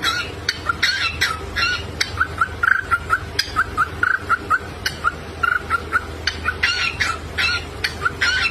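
Cockatiel chirping rapidly: a fast string of short, repeated chirps and warbled calls, several a second, with sharp clicks in between.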